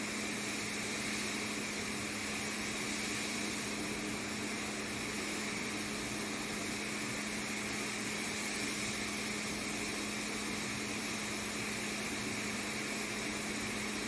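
Steady mechanical hum with an even hiss, unchanging throughout, like a fan or air conditioner running in the room.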